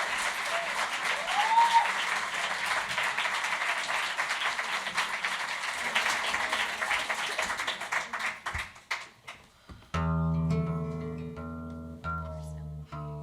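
Audience applauding, the clapping dying away over about eight seconds. About ten seconds in, music starts suddenly: a guitar playing held chords over low bass notes.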